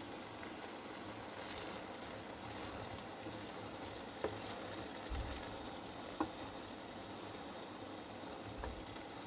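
Wooden spatula stirring spinach leaves in a steel pot, knocking lightly against the pot three times, over a faint steady hiss.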